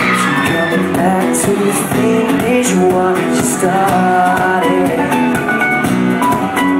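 Live acoustic pop performance: a male singer's voice over strummed acoustic guitars.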